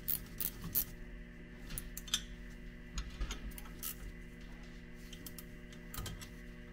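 Scattered light metallic clicks and taps from a hand tool working the caliper carrier bolts on a rear brake assembly, a cluster in the first second and a few more later, over a steady low hum.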